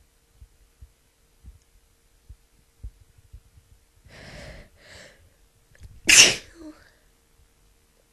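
A woman with a cold sneezes once, loud and sharp, about six seconds in, after two gasping breaths in.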